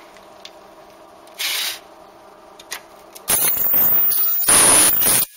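Portable ultrasonic riveting gun staking a plastic post on a car door panel: a brief hiss about a second and a half in, then about two seconds of loud harsh hissing noise with a thin high steady whine in its second half, ending abruptly as the horn is released.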